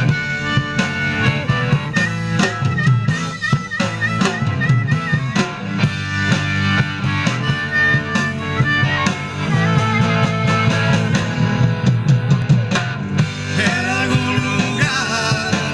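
Rock band playing an instrumental passage: drum kit keeping the beat under a lead melody that wavers in pitch.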